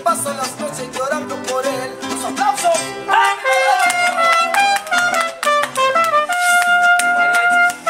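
Live mariachi band playing an instrumental passage: trumpets carry the melody over strummed guitars, ending on a long held note near the end.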